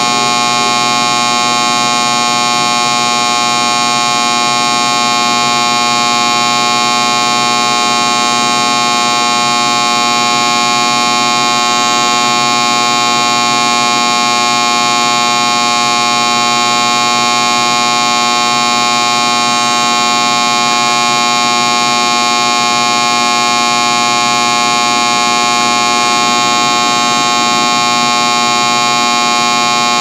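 Electric light buzzing: a steady electrical buzz on one unchanging low pitch with many bright overtones, holding level throughout.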